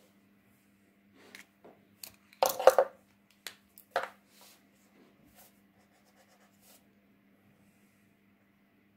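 Paint marker caps clicking and markers knocking against the table as one marker is swapped for another, with a loud cluster of clicks about two and a half seconds in and a single sharp click about a second later. After that come faint ticks and scratches of the marker tip on paper.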